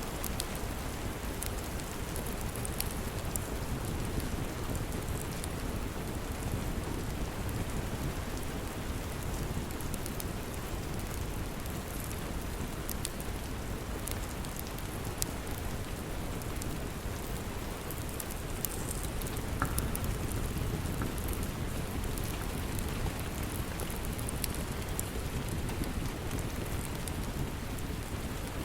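Steady rain with a deep low rumble beneath it, and scattered small crackles and pops of a wood fire burning in a fireplace.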